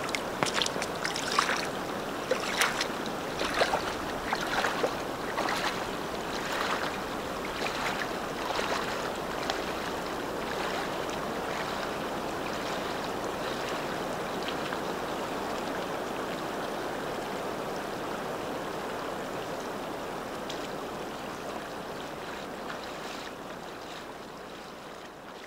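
Shallow river water rippling and lapping over pebbles at the shore, a steady wash of water with sharp little clicks over the first ten seconds or so. It fades out near the end.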